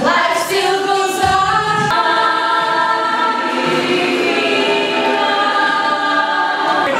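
A women's choir singing a cappella, several voices holding long chords, moving to a new chord about two seconds in.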